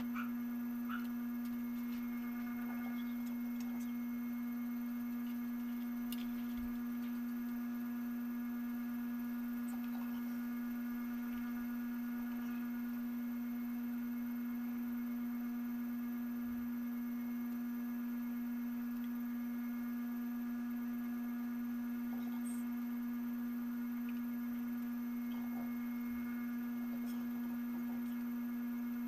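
A steady, unchanging single-pitched electronic hum that never varies in level, with a few faint clicks.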